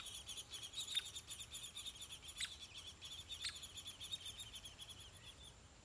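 Downy woodpeckers giving single sharp pik calls, three of them a second or so apart, over a steady high chirring chorus that fades near the end.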